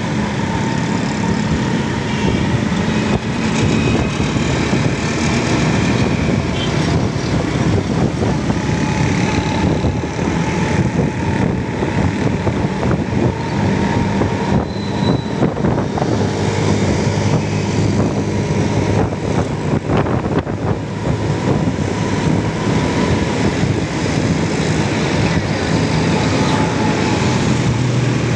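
Honda motorcycle engine running under way, heard from the rider's seat, its pitch shifting with changes in speed, over steady road and wind noise and passing traffic.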